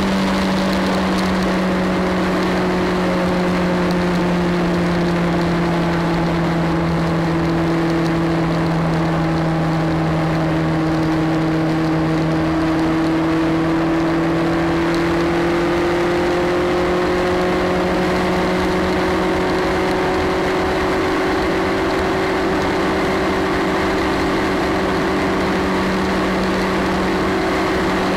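Motorcycle engine droning at motorway cruising speed over wind and tyre noise. Its pitch sags slightly through the middle and climbs back in the later part as the throttle is eased and opened again.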